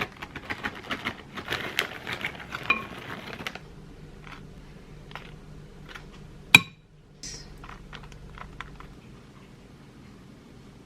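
Kitchen dishes and utensils clattering: a busy rattle of clicks for the first few seconds, then scattered light taps, with one sharp, loud clink about six and a half seconds in.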